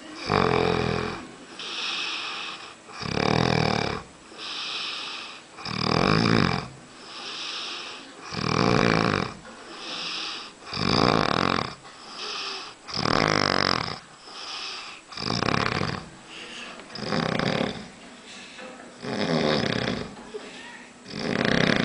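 A man snoring heavily: a loud, rough snore about every two to three seconds, with a quieter hissing breath between each.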